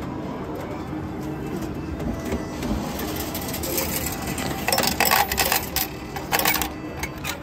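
Slot machine's ticket mechanism running as a paper voucher feeds through, a rapid mechanical clicking whir in two bursts about five and six seconds in, over steady casino background noise.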